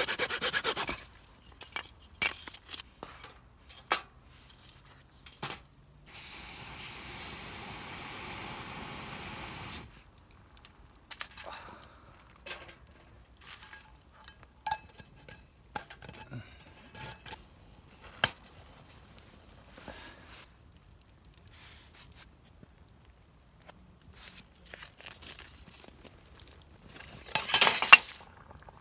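Camp cookware being handled: metal pots, lids and utensils clinking, knocking and scraping in scattered, irregular strikes. A steady hiss runs for about four seconds in the first third, and there are short loud rustling bursts at the start and near the end.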